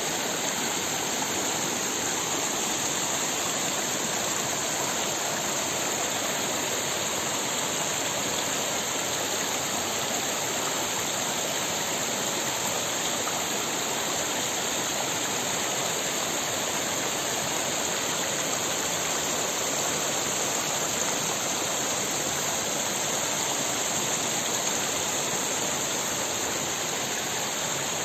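Shallow mountain stream flowing steadily over rocks and small cascades.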